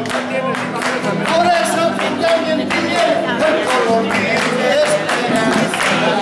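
Acoustic guitar song with voices singing along and hands clapping in a steady rhythm.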